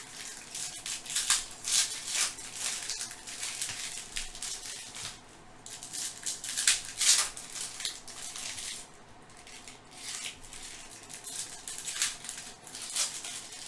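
Trading card pack wrappers crinkling and tearing open as the cards are handled, in a string of irregular rustles and crackles with louder spells now and then.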